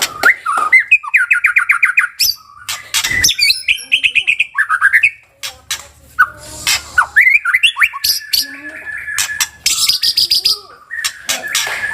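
White-rumped shama (murai batu) singing a loud, varied song: clear whistled notes, quick trills of rapidly repeated notes and sharp clicking calls, broken by short pauses.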